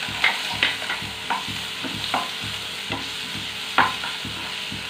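Onion frying in hot oil in a pan, a steady sizzle, while a spoon stirs and scrapes the pan with several short knocks against it, the sharpest near the end.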